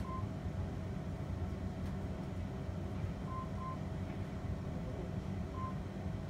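Short high electronic beeps from an ultrasound scanner as fetal measurements are set: two quick beeps at the start, two more about three and a half seconds in, and one near the end. Under them runs a steady low rumble.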